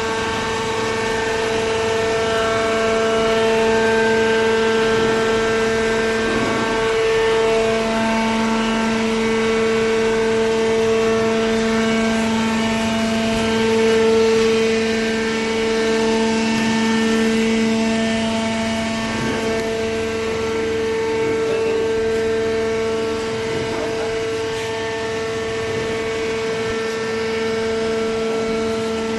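Hydraulic vertical cardboard baler's power unit running, its motor and hydraulic pump giving a steady whine of several held tones.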